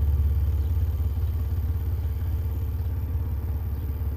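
Car subwoofers driven by the Incriminator amplifier, playing a steady low bass tone while the gain is set by watching for clipping. The tone eases slightly lower in level as the gain is turned back down.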